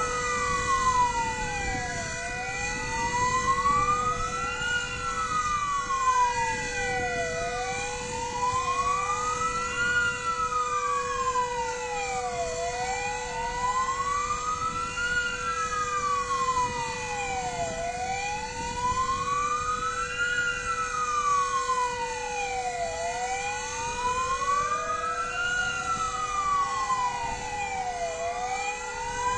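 Fire engine sirens wailing together, each rising and falling about every five seconds and out of step with one another, over a steady high tone. Near the end another siren tone slowly winds up. They are sounded in commemoration at W-hour, the anniversary of the Warsaw Uprising.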